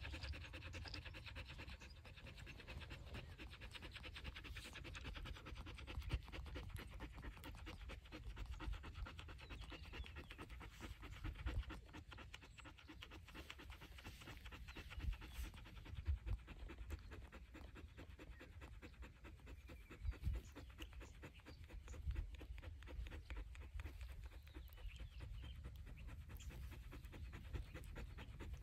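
A dog panting steadily with its mouth open: quick, even breaths in and out.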